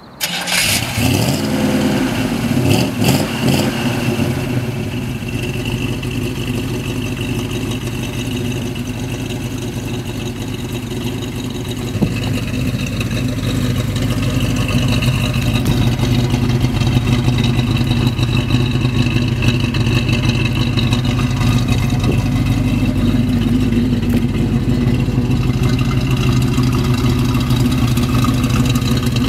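A 1967 Chevrolet El Camino's engine starts and revs a few times in the first three seconds, then settles into a steady idle. It is heard close at the tailpipe, and the idle grows slightly louder from about halfway.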